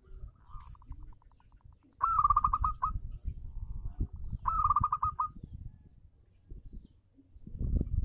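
Zebra dove cooing: a soft trill, then two loud bursts of rapid staccato coos about two and a half seconds apart. A low rumbling noise runs beneath and grows louder near the end.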